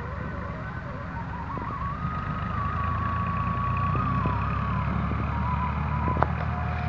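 A motor vehicle's engine running, a low rumble that grows louder, with a thin tone above it that steps up and down in pitch and a single sharp click near the end.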